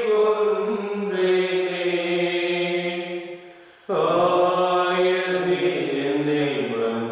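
Slow devotional chant with long held sung notes. It fades away about three and a half seconds in and starts again abruptly a moment later.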